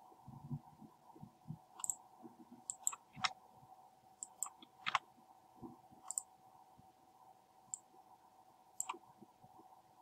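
Scattered sharp clicks of a computer mouse and keyboard, about ten at irregular intervals, over a faint steady hum.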